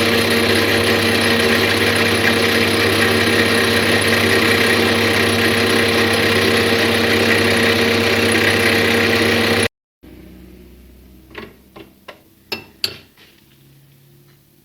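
Homemade horizontal milling machine running steadily with a constant hum, which stops abruptly about ten seconds in. Then a handful of sharp metallic clicks and knocks follow.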